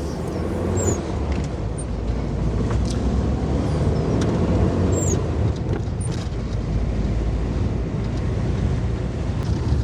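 Mini campervan driving, engine and road noise heard from inside the cabin as a steady low rumble, with a few faint high squeaks.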